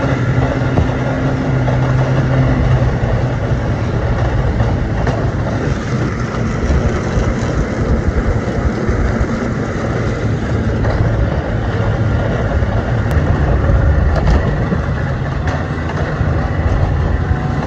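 Snowmobile running steadily along a snow-covered trail.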